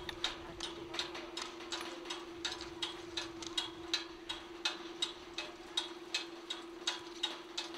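Ski chairlift running: rhythmic clicking, about three clicks a second, over a steady hum.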